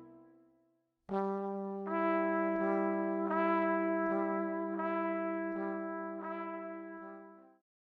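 Music: a brass quartet of trumpets and trombones holding sustained chords, with new notes coming in about every second. It starts after a short silence about a second in and dies away near the end.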